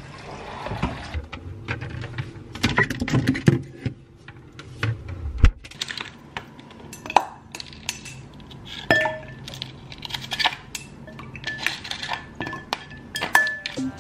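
Ice cubes clinking and knocking against a glass bowl as they are dropped into cold water: a long irregular run of sharp clinks, a few of them ringing briefly.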